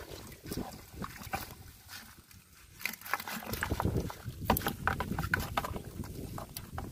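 Live fish being shaken out of a mesh net trap into a plastic bucket: irregular wet slaps, patters and knocks as the fish drop and flap against the bucket and each other, with the rustle of wet netting being shaken. The knocks come thickest from about three to six seconds in.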